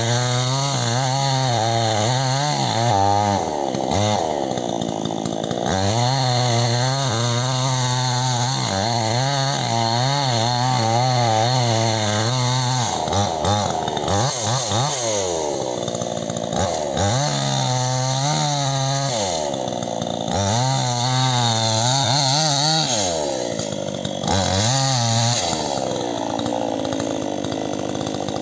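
Two-stroke chainsaw running at high revs while cutting into a rubber tree trunk; the pitch wavers under load, dips and picks back up several times, and eases off near the end.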